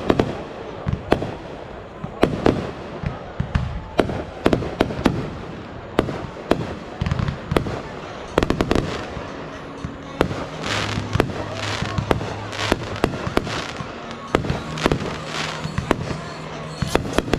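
Fireworks display: a rapid, irregular series of bangs from aerial shells going off, with music coming in about halfway through.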